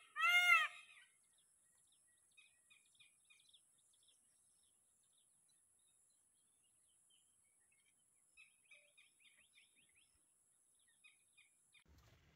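A bird's loud call, the last note of a repeated series, each note rising then falling in pitch, ends about a second in. Faint chirps of small birds come and go after it.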